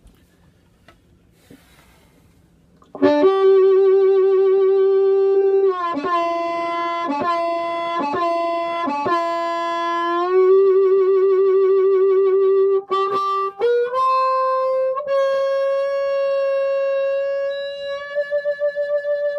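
Harmonica played into a bullet microphone, bluesy, coming in about three seconds in after a faint hum. Long held notes and a run of short choppy notes lead to a step up to a higher note, and near the end a note flutters as the cupped hands open and close.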